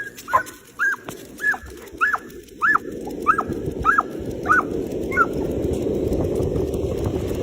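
A dog yipping excitedly in a quick series of about nine short, high-pitched yips, roughly two a second, stopping about five seconds in. A rushing noise grows under the yips from about three seconds in.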